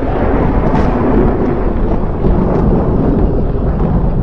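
Rolling thunder fading away after a clap, over the steady low rumble of a car driving through a rainstorm, heard from inside the car.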